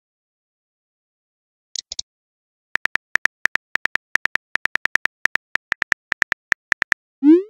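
Phone keyboard typing clicks: a few short ticks about two seconds in, then a fast, even run of about seven clicks a second as a text message is typed. It ends in a short rising swoop, the message-sent sound.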